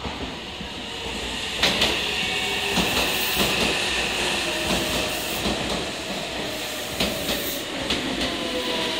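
Red Meitetsu electric train running slowly through the station platform, with a steady rumble, a few sharp clicks of wheels over rail joints, and a high squeal from about two seconds in. Near the end, lower squeals fall slowly in pitch.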